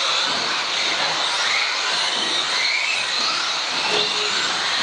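Several electric RC off-road cars racing on a carpet track. Their motors whine, rising and falling in pitch as they speed up and brake, over a steady rushing noise.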